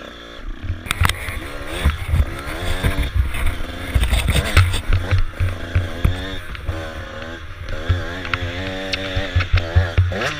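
Dirt bike engine revving hard as the bike pulls away and accelerates along a dirt track, its pitch climbing and dropping back several times as it shifts up through the gears.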